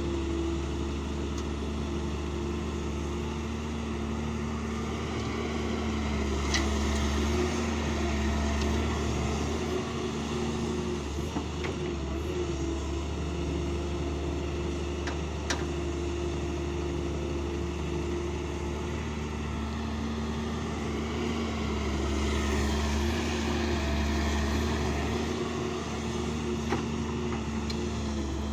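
Heavy diesel engine of an excavator running steadily, rising in level twice as it takes load, with a few sharp knocks.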